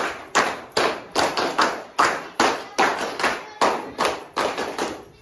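A crowd clapping in unison, a steady beat of about two and a half claps a second, which stops near the end.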